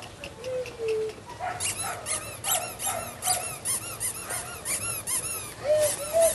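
A litter of German Shepherd puppies squealing and yipping, many short high-pitched cries overlapping in quick succession, starting about a second and a half in.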